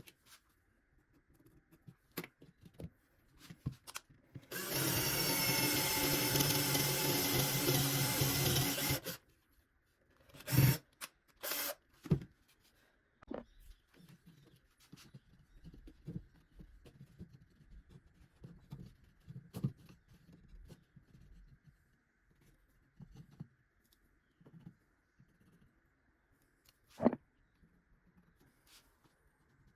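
Power drill running steadily for about four and a half seconds, drilling into wood for a screw hole. Several sharp knocks and clicks of wood and tools being handled follow, one loud knock near the end.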